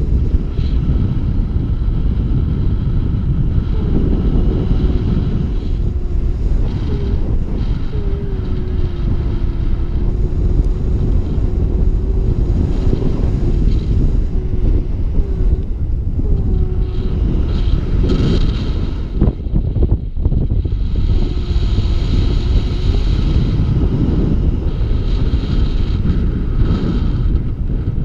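Airflow buffeting the microphone of a camera carried on a paraglider in flight: a loud, steady rushing rumble. A faint wavering tone comes and goes over it, and the rush briefly drops about two-thirds of the way through.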